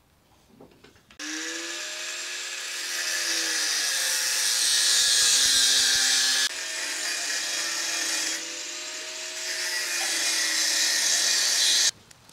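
Angle grinder with a cut-off disc cutting through steel rectangular tube: a loud, high-pitched hissing screech over the motor's whine, which sags and recovers as the disc bites. It starts about a second in and cuts off suddenly near the end.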